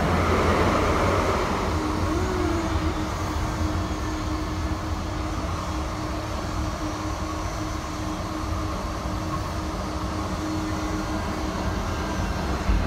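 Calgary CTrain light-rail car running, heard from inside the car: a steady rumble with a constant low hum.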